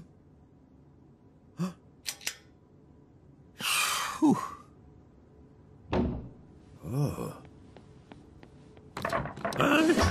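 Sparse cartoon sound effects in a quiet room: a few short thuds and clicks and several brief grunts, with busier clattering starting about nine seconds in.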